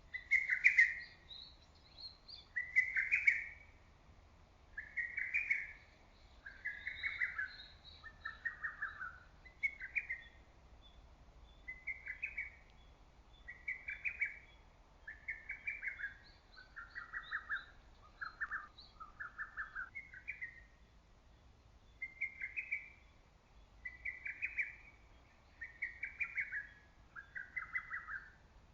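Lesser cuckoo (hototogisu) singing its loud, rapid staccato phrase over and over, about one phrase every two seconds, some phrases pitched a little lower than others. Faint, higher chirps of another small bird sound between the phrases.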